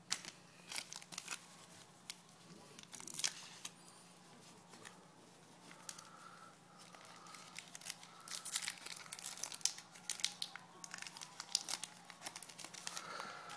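A foil baseball-card pack wrapper being torn open and crinkled by hand: irregular crackles and rips, busiest in the second half.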